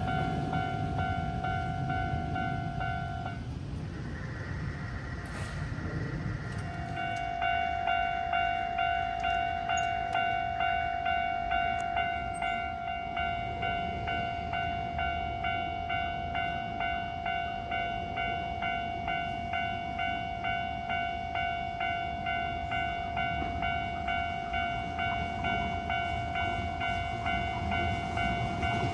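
Japanese level-crossing alarm ringing its steady, rhythmic 'kan-kan' tone while a Hankyu train rumbles past in the first few seconds. The alarm breaks off about three seconds in and starts again a few seconds later, ringing steadily to the end.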